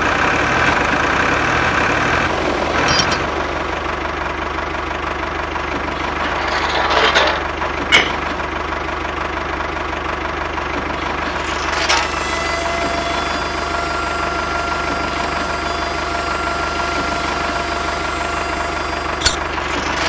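A steady engine-like motor running sound with a low hum, broken by a few sharp clicks. A steady whine joins about twelve seconds in.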